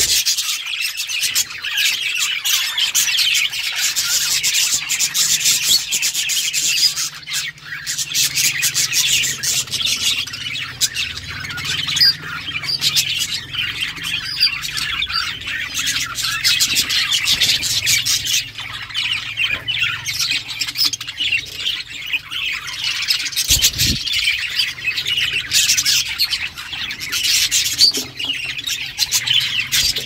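A flock of budgerigars chattering without a break, many high chirps, warbles and squawks overlapping.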